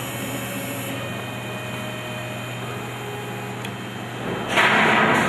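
Desktop CNC router's stepper-motor drives whining steadily as the X-axis carriage travels back to its reference point; a high whine cuts off about a second in. Near the end a louder rushing noise comes in.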